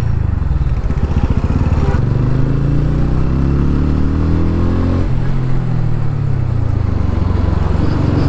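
TVS Ronin's single-cylinder engine pulling under acceleration on the move. Its note rises for a few seconds, drops suddenly about five seconds in as the next gear goes in, then climbs again.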